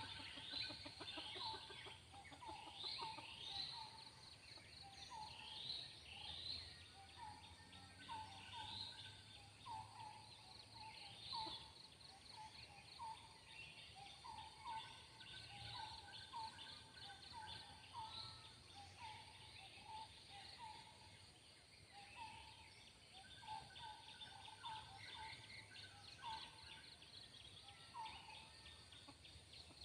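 Faint forest ambience of many short bird calls repeating throughout, with quick rising chirps higher in pitch.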